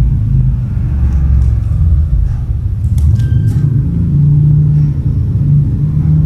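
A loud, low rumble with a steady hum that shifts in pitch now and then. There is a brief faint high squeak about three seconds in.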